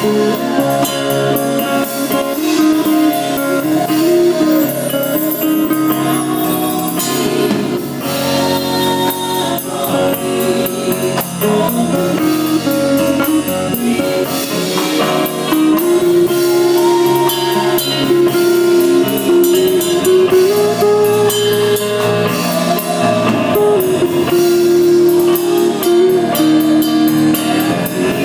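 Instrumental music with guitar and drum kit, a melody of held notes over chords and a steady cymbal beat.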